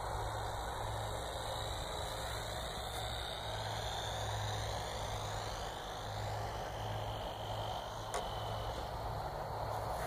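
Faint high whine of a model plane's electric motor, gliding in pitch as the plane comes down to land and fading out about two-thirds of the way through, over a steady low rumble of background noise.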